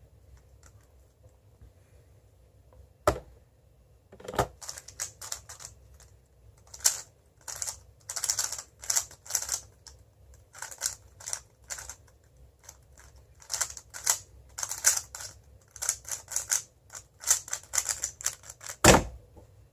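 Moyu WeiLong GTS2M 3x3 speedcube being turned fast in a speedsolve: rapid clusters of plastic clicking and clacking for about fourteen and a half seconds, ending in a single loud thump near the end.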